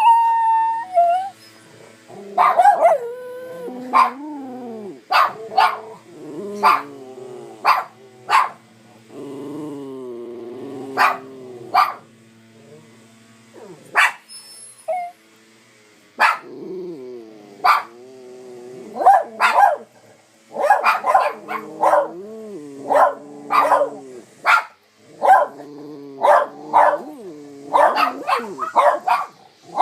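A dog barking in short sharp barks mixed with drawn-out whining, warbling calls whose pitch bends up and down, noises unusual for this dog; the barks come thicker in the second half. The dog is reacting to gardeners.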